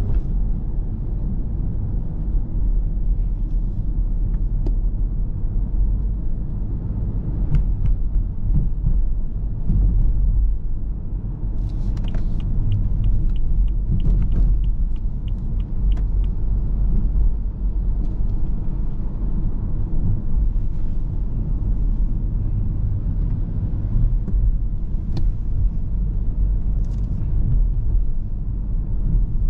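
Steady low rumble of a BMW's engine and tyres, heard from inside the cabin while driving. Near the middle comes a run of light, regular ticks, about three a second, lasting around four seconds.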